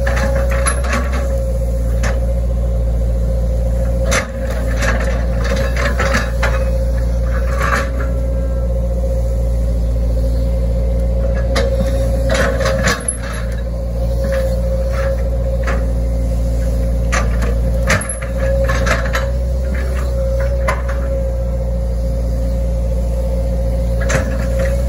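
Hitachi Zaxis 110 hydraulic excavator's diesel engine running steadily with a steady hum over it, heard from the cab. Irregular clicks, knocks and rattles come through as the bucket scrapes and tears up grass.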